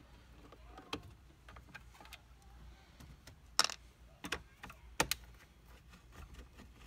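Screwdriver backing out the screws that hold a factory car radio's metal chassis in the dash: a few scattered light clicks and clinks of metal, the sharpest about three and a half seconds in and a quick cluster around five seconds.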